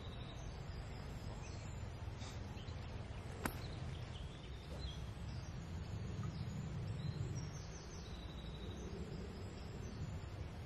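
Outdoor ambience: faint birdsong over a low rumble of wind on the microphone, with one sharp click about three and a half seconds in.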